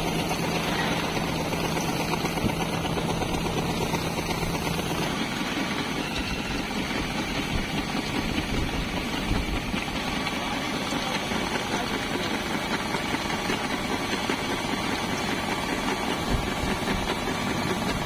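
Kartar 4000 combine harvester running steadily while its unloading auger pours wheat grain into a trolley: a steady machine drone with the hiss of falling grain. A low hum in it drops out about five seconds in.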